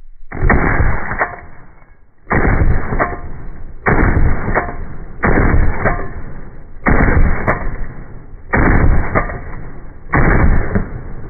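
Seven shots from a Smith & Wesson M&P10 AR-10-pattern rifle with a Precision Armament M4-72 muzzle brake, about one every second and a half. Each is a sudden deep boom that trails off over about a second, slowed down with the slow-motion footage.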